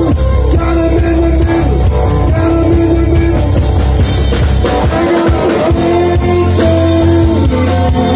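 A live rock band is playing, with a drum kit, electric and acoustic guitars, and a male singer on the microphone. The music is loud and continuous.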